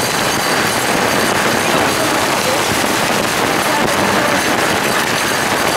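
Heavy rain pouring onto a wet road, a steady crackling hiss.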